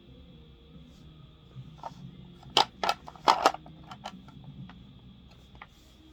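A handful of sharp clicks and taps, the loudest clustered about two and a half to three and a half seconds in, over a faint steady hum.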